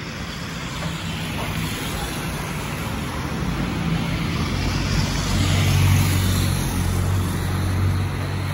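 Distant jet noise of an Airbus A319's IAE V2500 turbofans as the airliner passes overhead, a broad rushing roar that builds to its loudest about six seconds in. A low engine hum of street traffic runs underneath.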